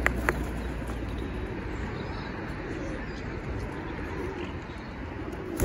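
Pigeons cooing softly, a few low rolling coos over steady outdoor background noise, with a couple of sharp clicks at the very start.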